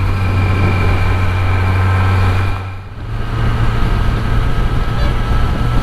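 Kawasaki Z900's inline-four engine running under way with a steady hum. It eases off briefly about three seconds in, then picks up again.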